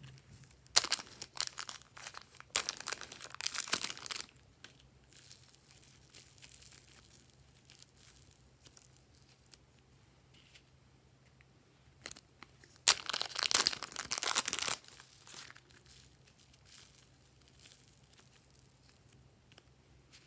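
Plastic bags of slime crinkling and crackling as they are opened and squeezed out, in two loud bursts, one about a second in and one about thirteen seconds in, with faint crinkles between.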